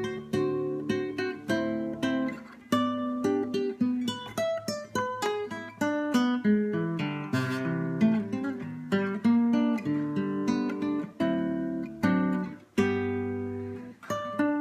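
Solo acoustic guitar played fingerstyle: a quick plucked melody over a moving bass line, with a strummed chord about halfway through.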